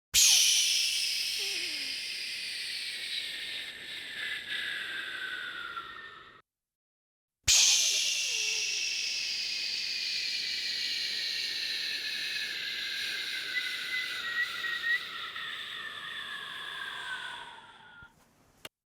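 Two separate releases of pressurized air or gas, each a hiss that starts suddenly at full force and then weakens as its pitch slowly falls. The first lasts about six seconds; the second starts about a second after the first stops and lasts about ten seconds.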